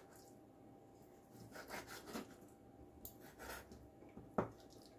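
Kitchen knife slicing raw chicken breast into small cubes on a wooden cutting board: a few faint scraping strokes of the blade through the meat and onto the board, then a sharper knock of the knife on the board about four seconds in.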